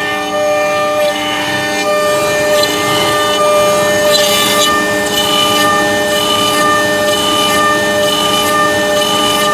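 CNC router cutting a roughing pass in a thick wooden board: a steady machine whine made of several pitched tones that change in steps as the cutter moves, over the rough noise of the bit chipping the wood.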